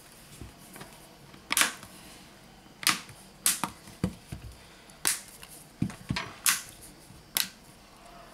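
Sharp clicks and snaps, about nine at irregular intervals, as a smartphone is handled and pressed around the edges of its freshly glued display.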